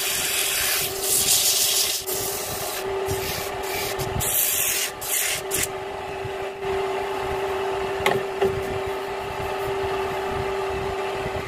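Sandpaper rubbing on a turned wooden piece spinning on a homemade wood lathe, an even hiss that stops about halfway through. The lathe keeps running under it with a steady hum.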